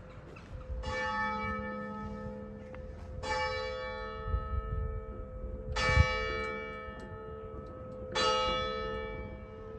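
A church bell tolling four slow strokes about two and a half seconds apart, each stroke ringing on and fading. A low thump comes just after the third stroke.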